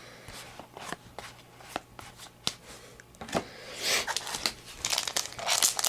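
Trading cards being handled and flipped through: scattered light ticks and slides, then a denser run of rustling from about four seconds in.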